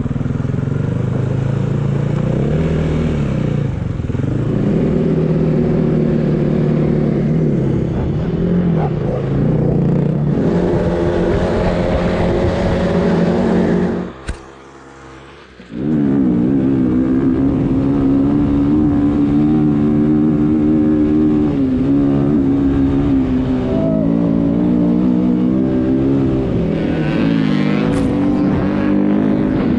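Snowbike engine running hard, its revs rising and falling with the throttle. About halfway through it drops away sharply for a second and a half, then comes back up.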